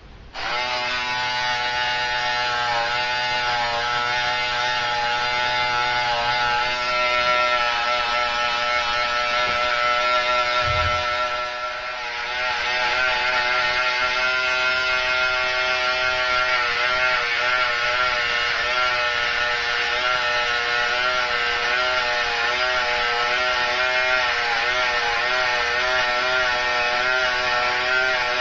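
Corded electric hair clippers switched on just after the start, buzzing steadily with a slight wavering in pitch as they cut hair, and briefly quieter about twelve seconds in.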